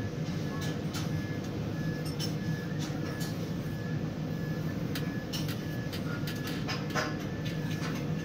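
Steady low machine hum inside a tower crane cab, with a faint high-pitched beep repeating about twice a second and occasional light clicks.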